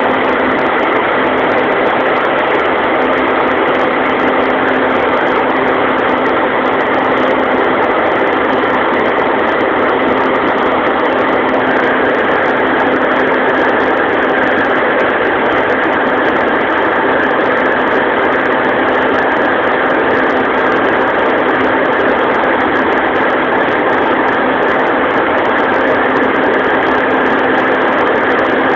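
Fortschritt E 514 combine harvester running steadily while it harvests oats: its diesel engine and threshing machinery make a loud, constant drone with a steady hum.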